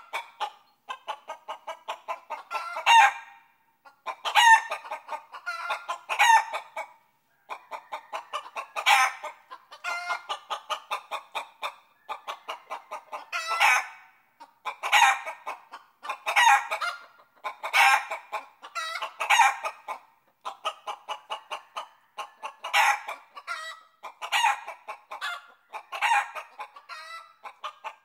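Chickens clucking: runs of quick clucks, each building to a louder, drawn-out call about every one and a half to two seconds, with a few short pauses.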